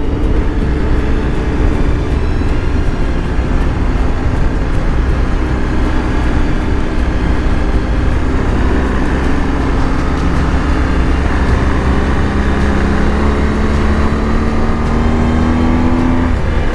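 BMW R 1250 GS Adventure's boxer-twin engine running under way, with wind rush. The engine note climbs steadily through the second half, then drops suddenly near the end.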